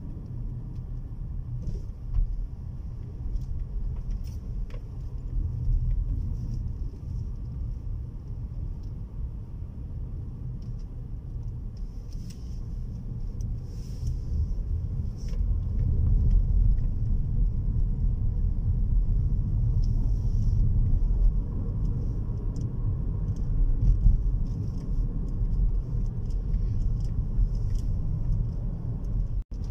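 Car cabin noise while driving: a steady low rumble of engine and tyres, growing louder about halfway through, with a few faint ticks. The sound cuts out for an instant near the end.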